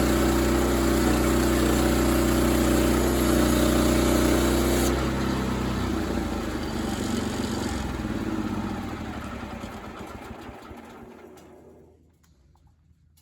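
Sawmill engine running steadily, then shut off about five seconds in and winding down slowly to a stop, leaving near silence near the end.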